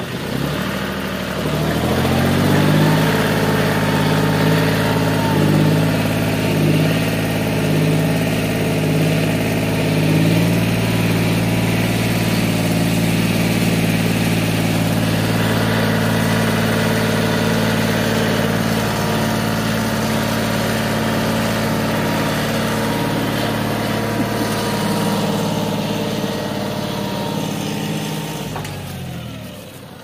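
John Deere tractor's three-cylinder diesel engine revving up over the first couple of seconds, then held at high revs under heavy load as the mud-stuck tractor and its loaded trolley are pulled free. The revs drop away near the end.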